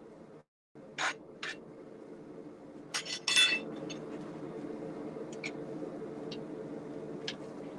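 A rasp drawn twice across hot steel held in a vise, then a loud clatter of metal tools with a brief ringing note, followed by a few light metallic clinks. A steady low hum runs underneath.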